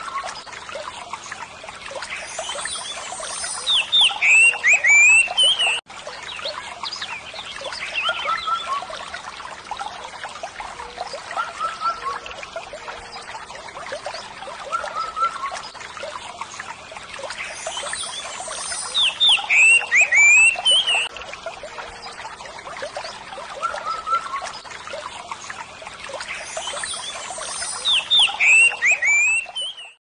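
Steady trickling, splashing water with small birds chirping over it. The chirping comes in louder, busier bursts of quick chirps three times, about four, nineteen and twenty-eight seconds in. The sound cuts out for a moment just before six seconds.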